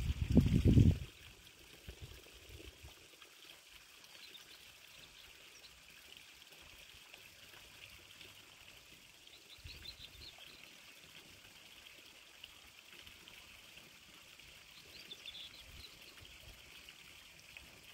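Wind buffeting the microphone in the first second, then faint steady outdoor hiss with a few short bird chirps scattered through, about four, ten and fifteen seconds in.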